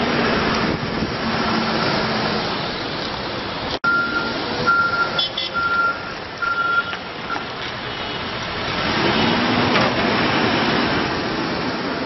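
Case 580N backhoe loader's diesel engine running as the machine drives and turns, with a run of four even, high beeps from its reverse alarm about four seconds in.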